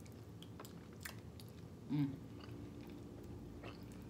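Faint chewing and mouth clicks of people eating bony curried chicken feet with their fingers, with a short hummed sound about two seconds in.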